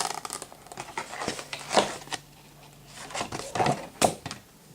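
Cardboard card-pack box and its contents being handled: scattered rustles with a few sharp taps and clicks, the loudest about two seconds in and again near four seconds.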